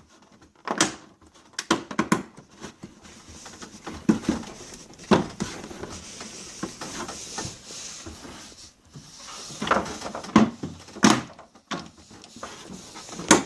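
Trunk finisher trim panel being pulled loose from a car's decklid by hand: scattered clicks and knocks of the trim and its retaining clips, a few seconds apart.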